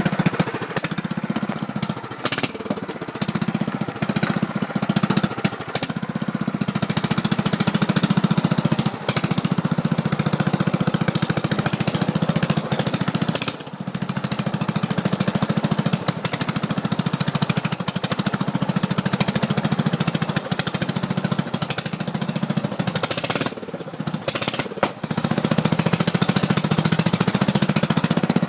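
Mud tractor's small engine running while the tractor is driven, a fast steady chugging pulse whose level rises and falls, dipping briefly about 13 seconds in and again about 24 seconds in.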